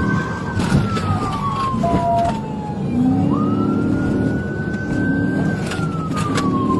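Police car siren wailing, slowly rising and falling about once every five seconds, over the steady running of a car engine.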